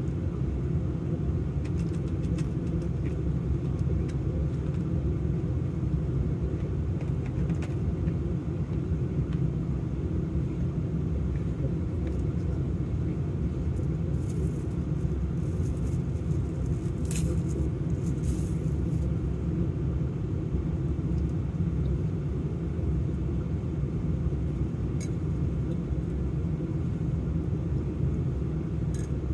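Steady low rumble of a vehicle idling, heard from inside the cab. About the middle come a few brief rustles and clicks of plastic food packaging being handled.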